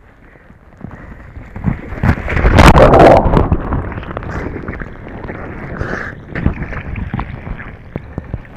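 A kayaker sliding off his kayak into the sea: a big splash about two to three seconds in, then water sloshing around him as he holds on beside the boat. This is a deliberate entry into the water to practise a self-rescue.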